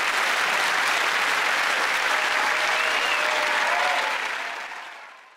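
Studio audience applauding, with a few faint voices calling out in the crowd, fading out over the last second and a half.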